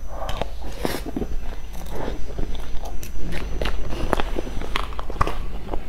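A person biting and chewing soft sponge cake close to a clip-on microphone, with irregular small wet clicks and smacks from the mouth.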